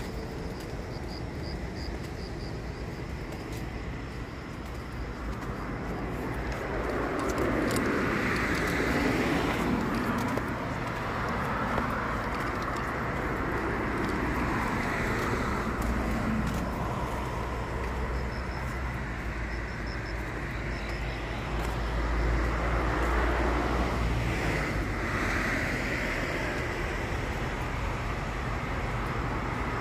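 Road traffic: cars passing one after another on a wet road. Each pass is a rising and falling swell of tyre hiss over a steady low rumble.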